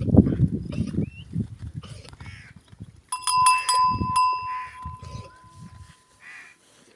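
A herd of goats and sheep bleating now and then, over low rumbling noise in the first second. About three seconds in, a metal bell clanks a few times and rings on, fading out.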